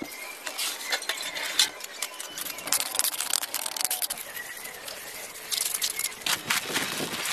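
Irregular scratching, scraping and light clicking of hand masonry work: a stick raking lines through wet mortar laid between bricks.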